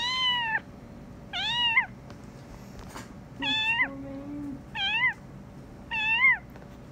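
A juvenile kitten meowing repeatedly while it is being held still: five short, high-pitched meows, roughly one every second and a bit.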